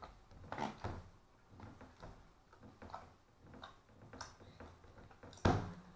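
Hands kneading and squeezing a large lump of sticky slime in a plastic tub: irregular wet squelches and small clicks, with one louder squelch near the end.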